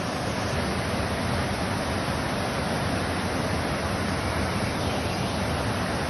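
Steady rushing of a waterfall's white water pouring over rocks, an even hiss with no break.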